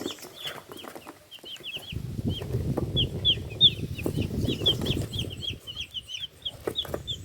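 A batch of newly bought chickens peeping continuously: many short, high, falling chirps. A low rustling runs underneath from about two seconds in.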